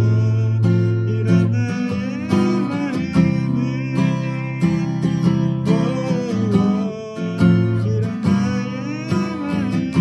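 Steel-string acoustic guitar strummed in a 16-beat pattern, a steady run of quick down- and up-strokes over changing chords, with a man singing along.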